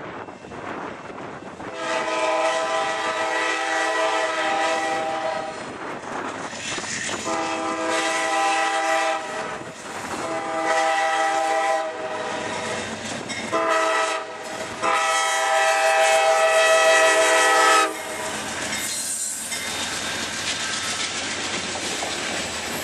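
Amtrak Genesis diesel locomotive's multi-chime air horn sounding a series of blasts, ending with a short one and then a long one held about three seconds. After the horn stops, the passing passenger cars rumble and clack over the rails.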